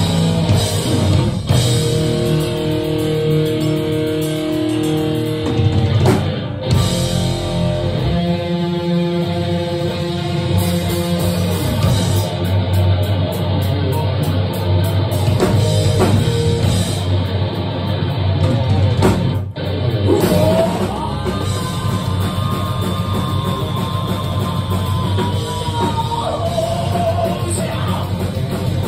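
Thrash-metal band playing live and loud, with distorted electric guitars, bass and a pounding drum kit, recorded on a phone's microphone. Held guitar chords ring out at first. The band stops short twice, and a high sustained lead line rides over the riffing in the second half.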